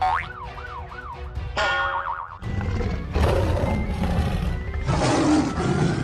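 A siren wails up and down three times, then switches to a fast warble. About two and a half seconds in, busy background music with loud action noise takes over.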